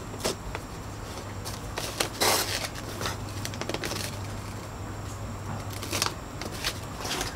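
Dry leaves of a hand-sewn conical hat crackling and rustling as it is handled and stitched with needle and thread: several brief crinkles, the loudest about two seconds in.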